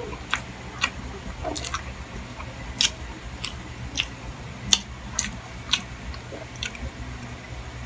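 Close-miked person chewing a mouthful of chicken liver and gizzard adobo, with wet mouth smacks and clicks coming irregularly about every half second, over a steady low hum.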